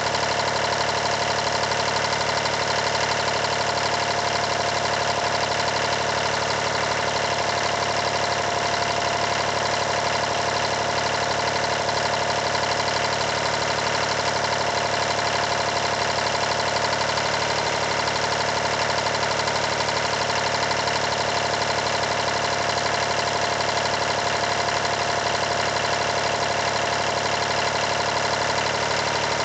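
Rebuilt Yanmar 336D three-cylinder diesel engine running steadily at a constant speed, with a fast, even clatter.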